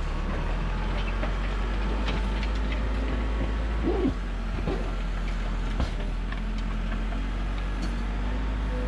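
Backhoe engine running steadily under work, with a few sharp clanks and a brief wavering squeak about four seconds in.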